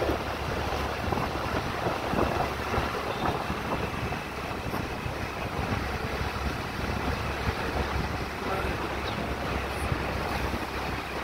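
Wind buffeting the microphone while riding a motor scooter, a steady gusty rumble over the scooter's engine and tyre noise.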